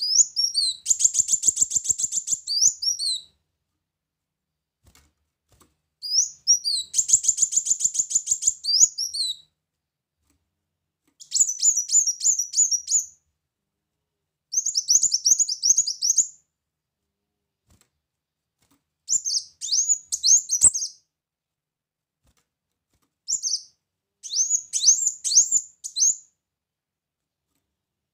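Kolibri muncang sunbird singing: bursts of rapid, high-pitched twittering, each about two seconds long, repeated about seven times with short pauses between.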